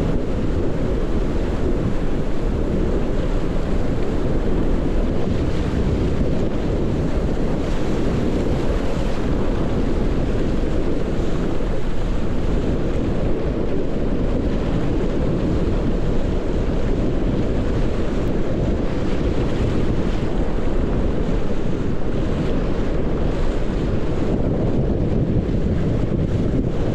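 Wind buffeting a GoPro microphone in a steady low rumble, mixed with water rushing under a windsurf board while sailing.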